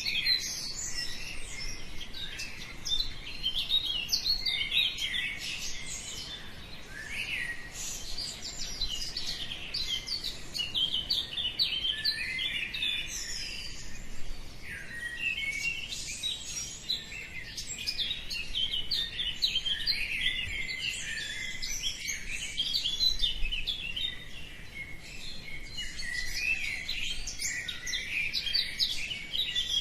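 Several songbirds chirping and singing at once in a dense, continuous chorus of short high chirps and trills.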